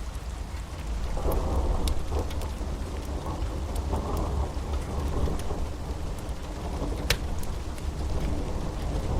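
Storm ambience: steady rain over a deep low rumble, with a roll of thunder swelling about a second in and fading over the next few seconds. Scattered sharp ticks, one louder crack about seven seconds in.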